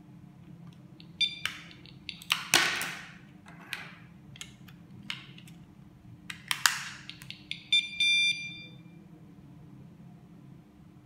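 Plastic clicks and clatter of a KS-SF03R magnetic door alarm being handled on a wooden table, loudest twice as a knock with a short rattle. The alarm unit gives a short electronic beep about a second in, then a short beep and a longer one near eight seconds as it responds to its key-fob remote.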